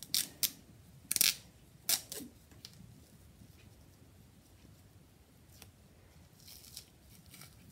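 Clear sticky tape being peeled off a spool of thread, a few short, sharp rips in the first two seconds or so, then fainter ones later.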